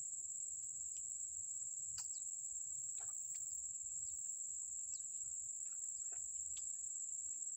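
Insects trilling: a steady, unbroken high-pitched drone, with a few faint clicks and short chirps scattered over it.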